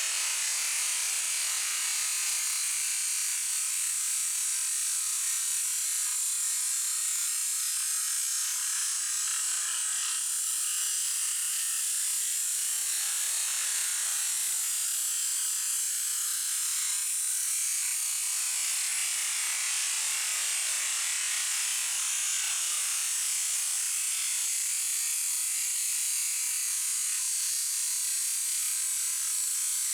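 High-pressure washer jet spraying with a steady, high-pitched hiss.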